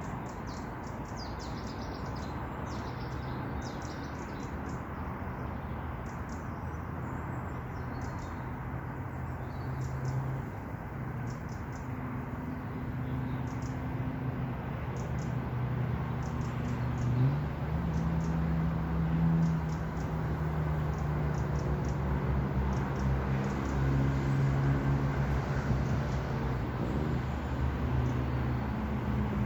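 A motor vehicle's engine running and slowly growing louder, its pitch stepping up about two-thirds of the way through and rising near the end as it accelerates. Faint high ticks or chirps sound over it in the first half.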